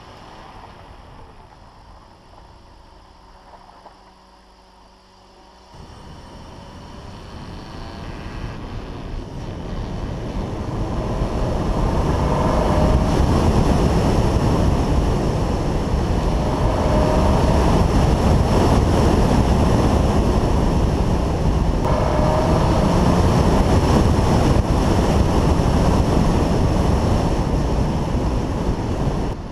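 Car on the move: a low rushing of engine, tyre and wind noise that builds over several seconds as it gathers speed, then holds steady.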